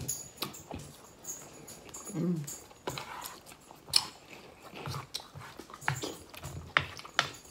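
Spoons scraping and clinking against soup bowls with soft eating and slurping, a series of sharp clicks. A short whine about two seconds in.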